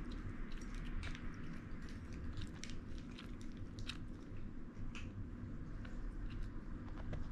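A cat chewing a hand-fed treat close to the microphone: irregular small crunching clicks over a steady low room hum.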